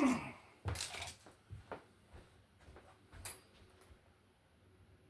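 Small hard items clinking and clattering a few times as supplies are rummaged through, with a sharp knock about a second in and another click about three seconds in.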